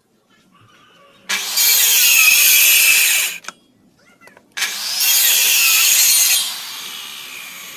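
Maktec electric circular saw run in two loud bursts of about two seconds each, its motor whining high as the blade cuts timber. After the second burst it carries on more quietly and steadily.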